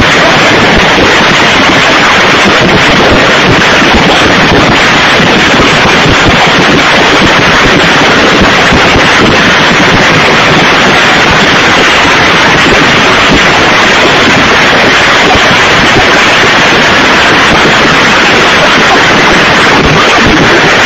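Hail and torrential rain pelting a paved square: a dense, steady, very loud hiss with no let-up.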